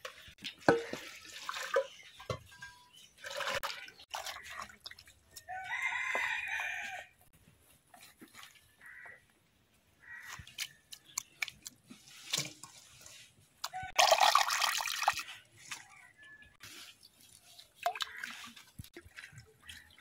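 A rooster crows once, about six seconds in, between bouts of water splashing and dripping. The loudest sound is a burst of splashing water about two-thirds of the way through.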